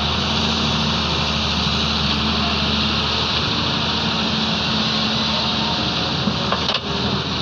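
Heavy diesel engines running steadily, from a Doosan excavator at work loading sand into a UD dump truck. The low hum drops a little about three seconds in.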